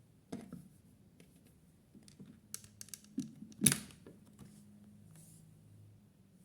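Toy washing machine being handled: scattered light clicks and knocks, the loudest a sharp click about three and a half seconds in, over a faint steady low hum.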